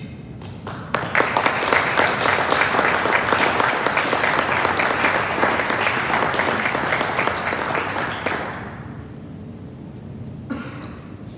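Audience applauding. The clapping starts about a second in, holds for about seven seconds and dies away.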